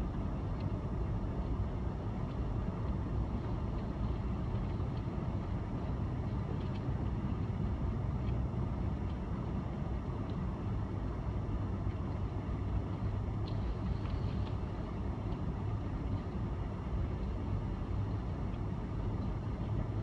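Steady low rumble of a car moving slowly on a snowy road, its engine and tyres heard from inside the car, with a few faint light ticks.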